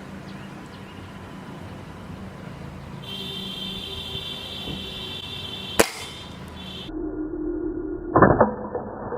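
NX100 Polaris air rifle firing: one sharp crack about six seconds in, then a second, louder sharp report near the end.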